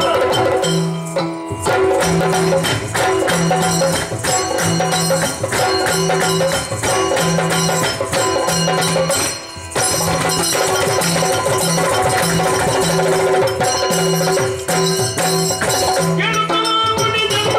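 Yakshagana percussion accompaniment for a dance passage: chende and maddale drums in a brisk, even repeating pattern, with jingling bells and metallic strikes. It dips briefly about halfway through, and its texture changes near the end.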